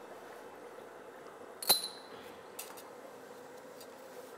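A single sharp metallic click with a brief high ring about two seconds in, as of a metal pedicure tool, over a faint steady hum.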